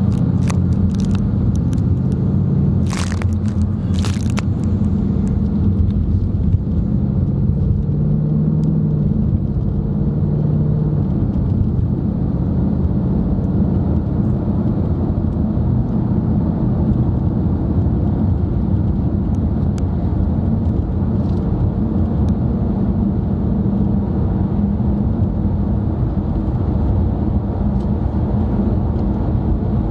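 Steady low rumble of a car's engine and tyres on the road, heard from inside the cabin while driving. Two sharp clicks come about three and four seconds in.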